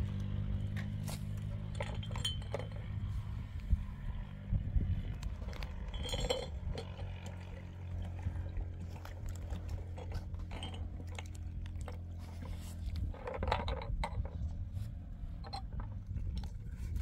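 Engine idling steadily, with scattered clinks and knocks of hard objects being handled, in clusters about six seconds in and again near thirteen seconds.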